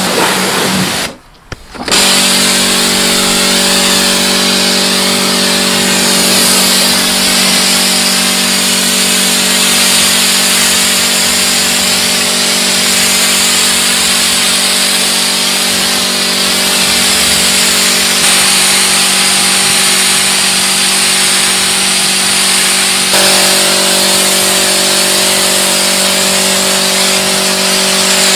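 Pressure washer running continuously: a steady motor-and-pump hum under the hiss of the high-pressure spray and foam lance jetting onto a car's bodywork. The sound cuts out briefly about a second in, then carries on.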